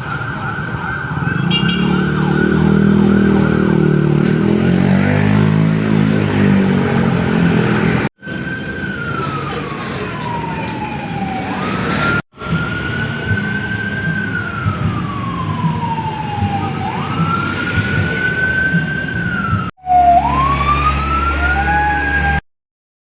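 Fire truck sirens. First a fast warbling yelp with heavy low engine noise underneath, then slow wails rising and falling. The sound breaks off abruptly several times.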